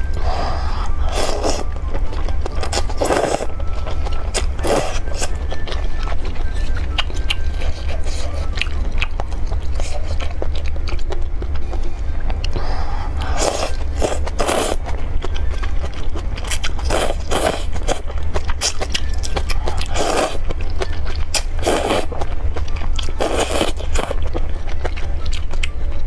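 A person slurping noodles and broth from a bowl of noodle soup, in about ten separate slurps of half a second to a second each. Quieter chewing comes between the slurps.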